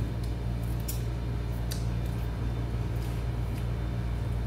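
Steady low hum under a few faint, short clicks and smacks of people eating crab.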